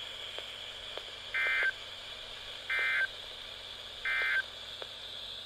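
Emergency Alert System end-of-message: three short bursts of warbling digital data tones from a NOAA Weather Radio, about a second and a half apart, over steady radio hiss. The bursts signal the end of the severe thunderstorm warning broadcast.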